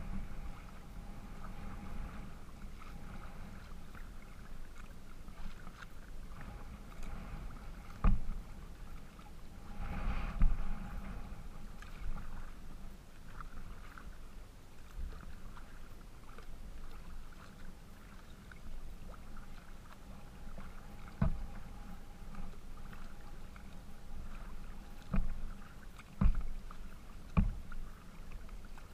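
Small waves lapping and splashing against the plastic hull of a Wilderness Systems Pungo 140 kayak under way, with a handful of sharp knocks on the hull: one about eight seconds in, the loudest around ten seconds, and a cluster of three near the end.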